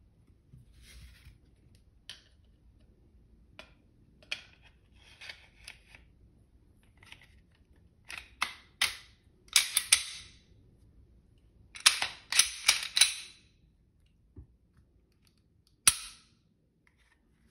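Glock 19 pistol being reassembled by hand: scrapes and light clicks of the slide going onto the polymer frame, then clusters of sharp metallic clacks as the slide is worked, and one sharp click near the end.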